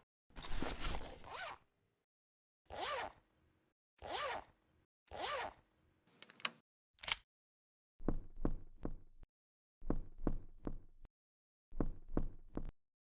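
A run of separate zipper sound effects with short silences between them. A longer zip near the start is followed by three quick zips, a sharp click, and then three slower zips that break up into rapid ticking clicks.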